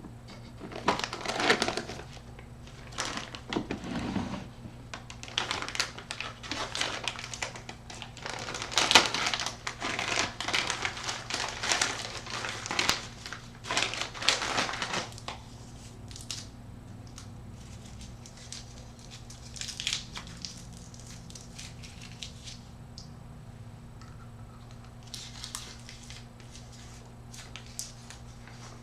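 Irregular crinkling and clicking handling noises, dense for about fifteen seconds and then sparse, over a steady low hum.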